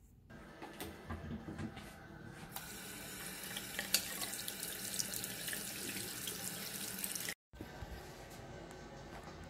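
Bathroom tap running into a sink basin during handwashing, a steady splashing hiss that gets louder a couple of seconds in and briefly cuts out near the end.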